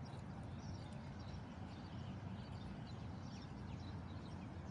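Steady low rumble with many faint, quick high chirps scattered throughout.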